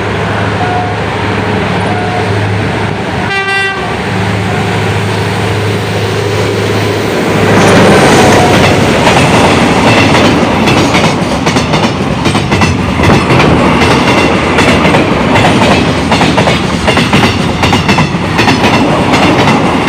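Freight train's locomotive engine running with a steady low drone, then a short horn toot about three and a half seconds in. From about halfway through, the train passes close with a loud rumble and wheels clacking over the rail joints.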